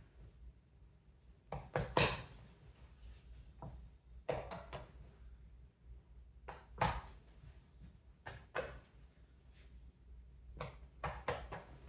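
Scattered short knocks and rustles of kitchen things being handled and set down on a counter while bread dough is worked, over a faint low hum. The louder knocks come about two seconds in and about seven seconds in.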